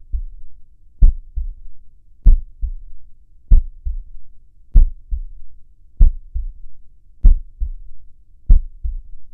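Heartbeat sound effect: a slow, steady lub-dub, a loud low thump followed by a softer one, repeating about every second and a quarter.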